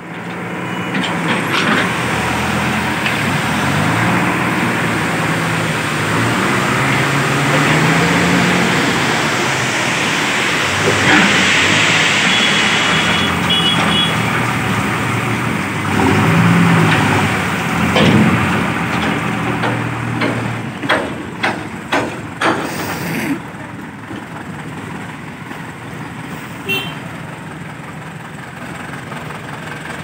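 JCB 3DX backhoe loader's diesel engine running under load, its pitch rising and falling as the hydraulics work the backhoe arm and bucket in soil and broken road surface. A run of sharp knocks comes about two-thirds of the way through, after which the sound settles to a steadier, quieter running.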